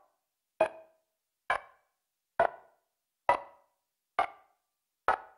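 Sharp percussive clicks keeping a slow, steady beat, six of them a little under a second apart, with silence between.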